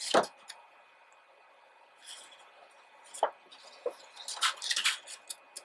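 Pages of a large paper magazine being turned by hand: a sharp slap of paper just at the start, then scattered soft rustles and swishes, with a cluster of them about four and a half to five seconds in.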